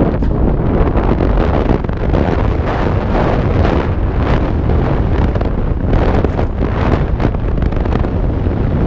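Heavy wind buffeting the microphone on a fast mountain-bike descent down a dirt trail, mixed with the tyres running over the dirt and frequent knocks and rattles from the bike over small bumps.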